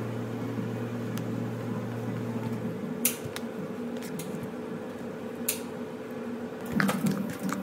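Kitchen room tone with a steady appliance hum that stops about three seconds in. A few sharp clicks and light knocks follow, with a cluster near the end, as tart filling is spooned into metal tart pans.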